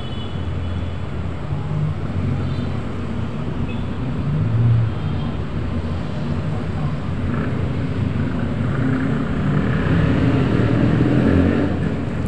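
Steady low rumbling background noise that swells slightly twice.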